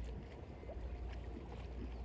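Small waves lapping at the shore of Lake Ashi, irregular little splashes over a steady low rumble.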